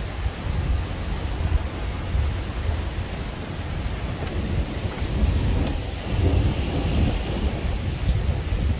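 Thunder rumbling over steady rain, the rumble swelling from about five seconds in.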